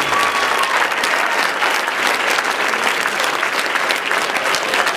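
Theatre audience applauding: dense, steady clapping from many hands. The end of the show's music fades out under it in the first second.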